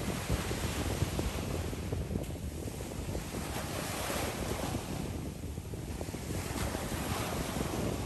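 Choppy sea waves splashing and washing, the hiss swelling and fading every two to three seconds, with wind buffeting the microphone.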